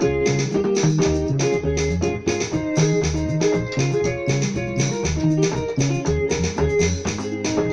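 Portable electronic keyboard playing a gospel song in F-sharp, both hands on the keys: sustained chords over a bass line with a steady beat.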